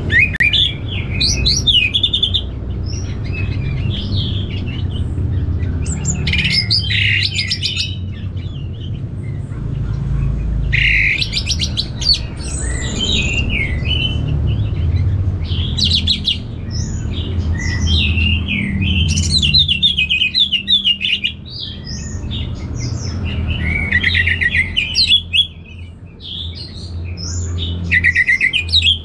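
Orange-headed thrush singing: loud, varied phrases of rapid high whistles and trills, one after another with short pauses between, over a steady low rumble.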